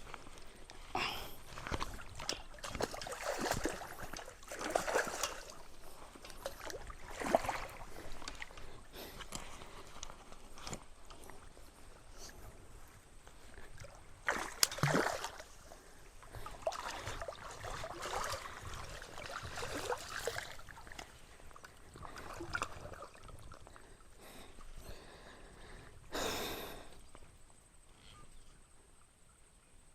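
Creek water splashing and sloshing in irregular spells as a hooked trout thrashes while being played and landed.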